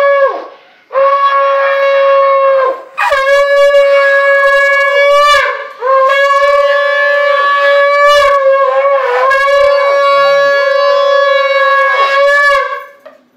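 Conch shell (shankha) blown in long, steady, loud blasts, the ritual conch of a Hindu puja. The pitch sags at the end of each breath. There are three short breaks, and the last blast is the longest, about seven seconds.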